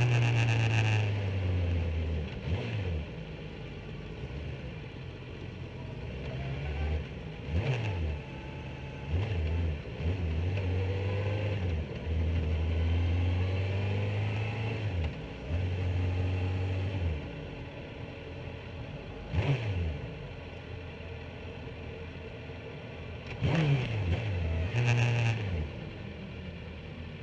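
Sport motorcycle engine running at low revs as the bike slows from about 30 mph to walking pace, with about six short throttle blips that rise and fall in pitch.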